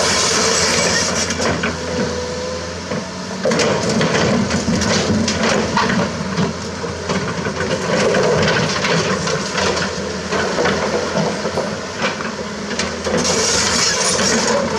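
Komatsu PC200-6 hydraulic excavator's diesel engine running under load while its bucket scrapes and pushes broken concrete and stone rubble. Rocks clatter and knock repeatedly from about four seconds in until near the end.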